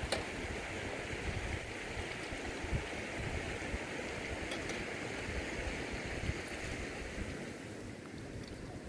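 Steady rushing noise with irregular low rumbling underneath, easing off slightly near the end.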